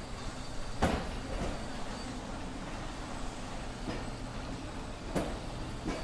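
Train rolling into a station: a steady low rumble with a few sharp metallic knocks, the loudest a little under a second in and others near the end.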